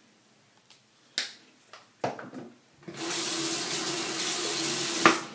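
Bathroom sink tap running steadily for about two seconds while a toothbrush is wetted under it, ending with a sharp knock as it is shut off. A click and small handling noises come before it.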